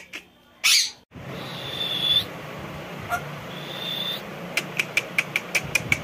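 Indian ringneck parakeets calling: a harsh squawk just under a second in, two short steady high whistles, then a quick run of about eight sharp clicks near the end.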